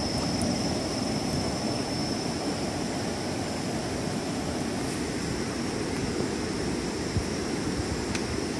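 Steady rushing outdoor noise, with a thin, steady high whine above it and a couple of faint clicks near the end.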